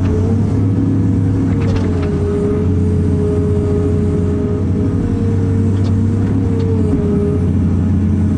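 Cat 330 excavator's diesel engine and hydraulics running steadily under digging work, heard from inside the cab. A low hum sits under a steady whine that dips slightly in pitch a couple of times.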